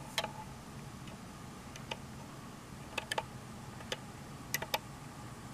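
Irregular light clicks and taps of a plastic trimmer adjustment tool knocking against a trim pot and the plastic case as it probes for the calibration pot inside a multimeter, about eight ticks with some in quick pairs.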